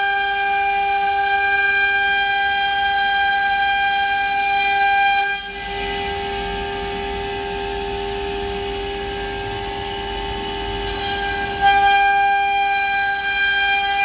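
CNC router spindle whining at a steady high pitch as its bit cuts a wood board. A little after five seconds the tone shifts and a low rumble of cutting joins it. Near the end it returns to the first, louder whine.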